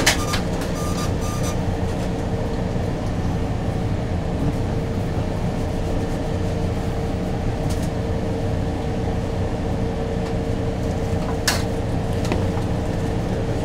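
Steady machinery drone of a food truck's kitchen equipment, with a constant hum over a low rumble. There are faint clicks about eight seconds in and again near the end.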